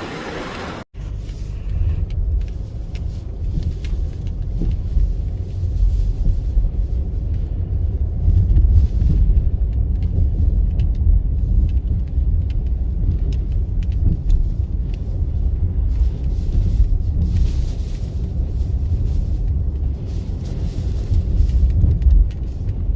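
Strong wind buffeting the microphone, a heavy, uneven rumble, with rough sea surf beneath it. The sound drops out briefly about a second in.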